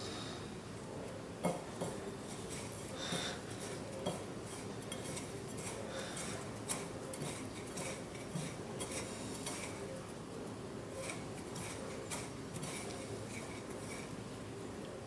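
Fingers working crayfish chunks through bowls of beaten egg and breadcrumbs: scattered light clicks and taps against the bowls, with brief soft rustling of crumbs, over a steady low room hum.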